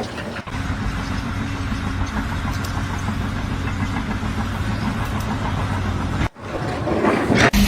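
A machine engine running steadily with a low, even hum, which breaks off abruptly about six seconds in and gives way to a brief, noisier sound.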